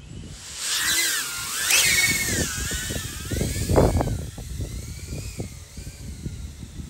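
Darwin FPV CineApe 25 ducted cinewhoop drone spinning up its motors and props and flying off. It makes a high whine that rises sharply about two seconds in, then wavers up and down with the throttle and fades away. Gusty wind rumbles on the microphone underneath.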